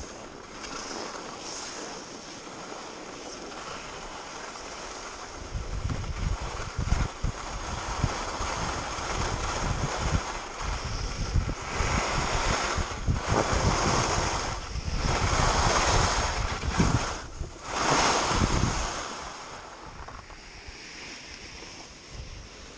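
Skis hissing and scraping over packed snow during a downhill run, swelling with each turn about every two seconds, with wind buffeting the microphone. The sound builds about a quarter of the way in and dies down near the end.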